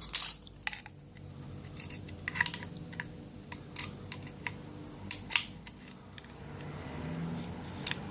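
Scattered metallic clicks and small scrapes of a key being worked in an old lever padlock, the key turning against the levers. The clicks come irregularly, a cluster about two and a half seconds in and another about five seconds in.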